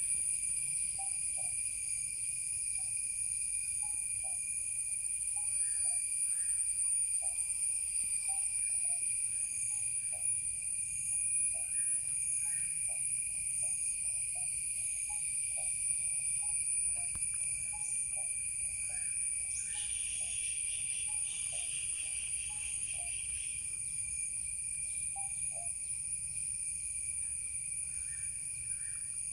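Steady chorus of insects, several continuous high-pitched drones at different pitches, with short chirps repeating throughout. A faster pulsing trill joins about twenty seconds in and stops a few seconds later.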